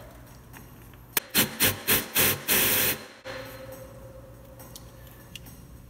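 Battery impact gun hammering on a seized set screw through an eighth-inch Allen bit: a few short bursts, then one longer burst of under a second, about a second and a half in. The screw does not turn.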